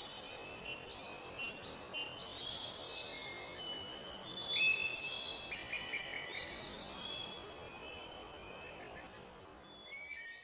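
Birds chirping and singing, many short overlapping calls over a steady background hiss, getting quieter near the end.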